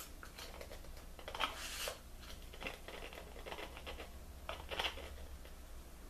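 Soft, scattered clicks and rattles of a dill weed spice container being opened and handled, in a few small clusters, over a faint steady low hum.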